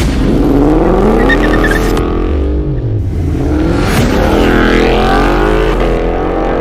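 A car engine revving, its pitch rising and falling several times.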